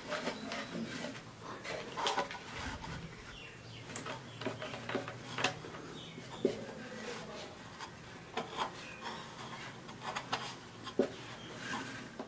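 Hand stuffing white fibre wadding into an MDF speaker enclosure through its driver cut-outs: soft rustling with irregular sharp taps and knocks against the box.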